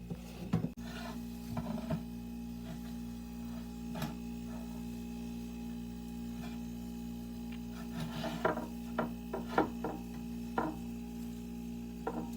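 Handling sounds from cleaning out a mini fridge: rubbing and scraping with scattered knocks and clicks, several of them close together about eight to eleven seconds in, over a steady low hum.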